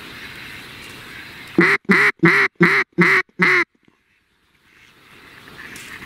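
Six loud, evenly spaced hen-mallard quacks blown on a duck call, each note rising and then falling in pitch, starting about a second and a half in after a steady background hiss.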